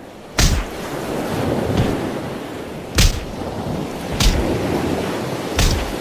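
Sound effect for an animated logo reveal: a steady rushing, rumbling noise broken by four sharp cracks, at about half a second in and then near 3, 4 and 5.5 seconds.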